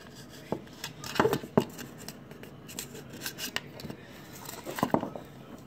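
Small plastic toy pieces being handled on a tabletop: scattered sharp clicks and taps, the strongest in a cluster a little over a second in and another near five seconds.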